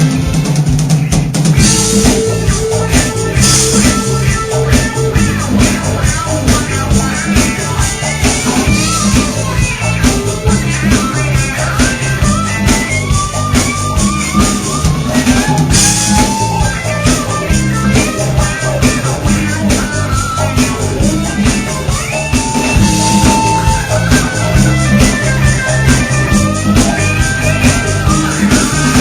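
Live band's instrumental break: a lead guitar plays a solo with bent, sliding notes over drum kit, bass and percussion keeping a steady beat.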